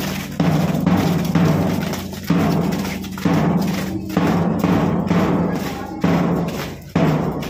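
Marching drum beat: a heavy, ringing drum stroke about once a second, keeping time for a parade march.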